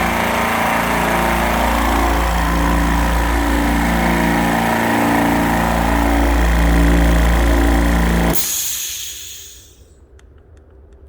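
Oilless low-noise air compressor running steadily, then shutting off about eight seconds in with a brief hiss as it winds down. A few faint ticks follow.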